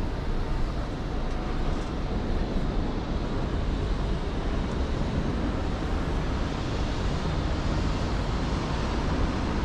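Steady outdoor background noise with wind rumbling on the microphone.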